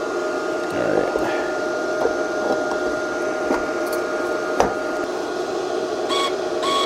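Bestarc multiprocess welder switched on, its wire-feed motor turning with a steady whirring hum and a couple of steady whine tones. One sharp click about four and a half seconds in.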